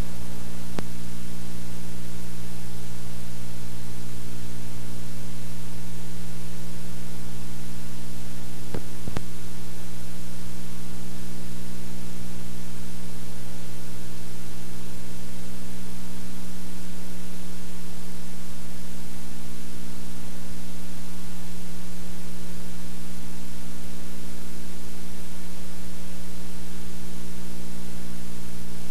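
Steady electrical mains hum with its overtones under an even hiss, with faint clicks about a second in and again around nine seconds in.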